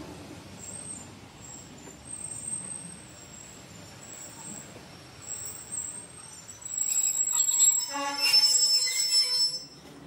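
Train brakes and wheels squealing on the rails. Faint high squeals come and go at first, then a loud, shrill screech of several tones starts about seven seconds in and stops abruptly just before the end.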